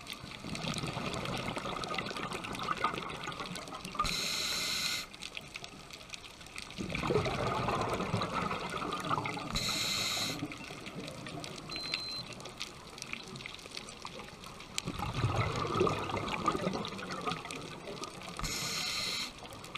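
Scuba diver breathing through a regulator underwater: three short hissing inhalations alternate with two longer bubbling bursts of exhaled air, one breath every several seconds.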